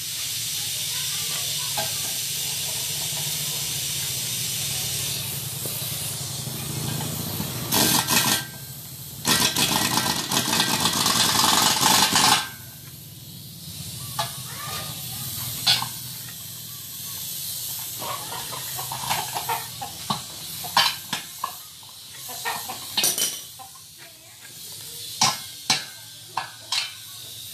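Compressed air hissing from an air hose into a walk-behind tractor's front tyre as it is inflated on its rim. The hiss is steady at first and much louder for a few seconds around the middle. It then gives way to scattered sharp knocks and clicks.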